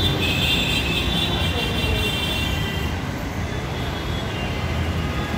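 Steady road traffic noise with a metro train running along the elevated viaduct above; a high whine fades out over the first couple of seconds.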